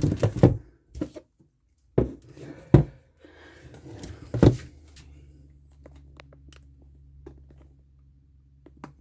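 Knocks, bumps and rubbing from a phone camera mount being handled and readjusted, four louder knocks in the first half, then a faint steady low hum with a few light clicks.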